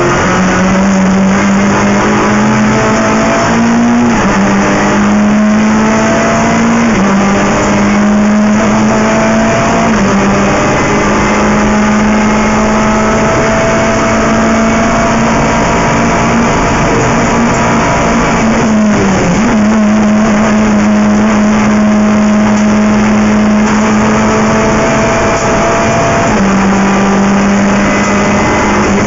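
Renault Clio III Cup race car's 2.0-litre four-cylinder engine at full throttle, heard loud from inside the cockpit. It runs near the top of its revs, its pitch dipping briefly at several quick gear changes, and drops as the driver lifts off near the end.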